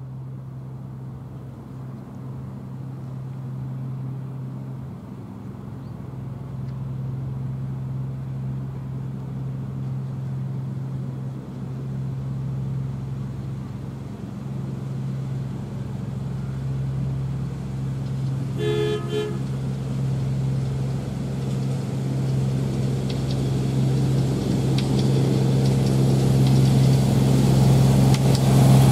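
Miniature railway diesel-hydraulic locomotive's engine running steadily as it approaches, growing louder throughout. It gives one short horn toot about two-thirds of the way through.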